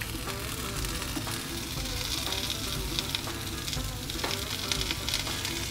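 Chopped ivy gourd dropping into hot oil with frying onions and chillies, sizzling steadily in the pan. The sizzle grows louder and brighter about two seconds in as more of the pieces go in.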